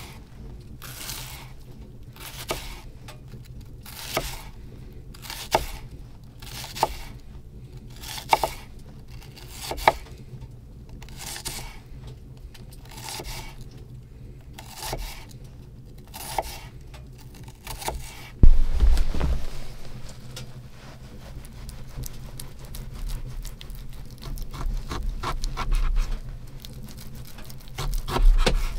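An onion being sliced with a folding knife on a wooden board, one crisp cut about every second and a half. About two-thirds in there is a loud thud, then quicker chopping and scraping of the knife on the wood.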